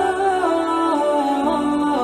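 Background music: a slow, chant-like vocal melody of held notes that step up and down with small ornamental turns.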